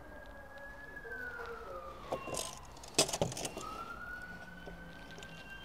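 A faint siren wailing in a slow cycle: one tone holds, falls, then rises and falls again. Small clicks and taps from handling a tape measure and pen on a plywood board, with a sharp tap about three seconds in that is the loudest sound.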